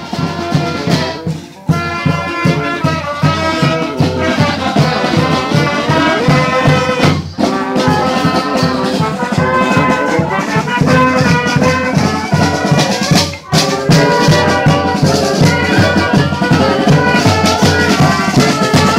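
A band playing music with a steady, driving beat and a rattling shaker, breaking off briefly about every six seconds between phrases.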